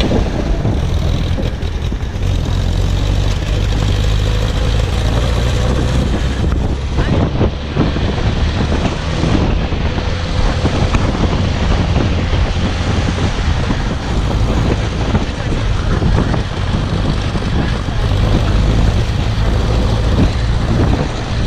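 Car driving on the road: a steady engine and road rumble with wind buffeting the microphone.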